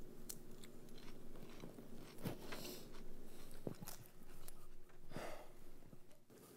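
Someone chewing food: scattered soft crunches and clicks, with a couple of longer rustles, over a steady low hum of room tone.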